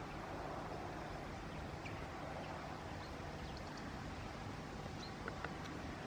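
Great spotted woodpecker tapping its bill on a wooden utility pole, two or three short taps about five seconds in, over a steady outdoor background hiss. A few faint, high, short bird chirps come through.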